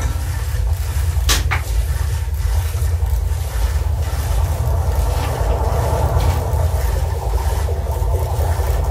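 Electroacoustic collage played over a loudspeaker: a dense, steady low drone of layered, processed recordings of everyday found objects, with a brief double scrape just over a second in.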